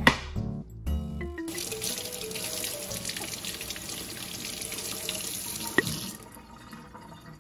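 Kitchen faucet running into a stainless steel sink while an eggplant is rinsed under the stream, the water shut off about six seconds in with a small knock of the tap. A wooden cutting board is set down on the counter with a knock at the start.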